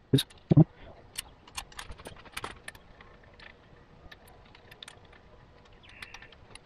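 Light metallic clicks and taps of steel bolts being handled and threaded in by hand on a Subaru 2.5L single-cam cylinder head's rocker assembly, with two louder knocks near the start. The clicks come thickly for about three seconds, then only now and then.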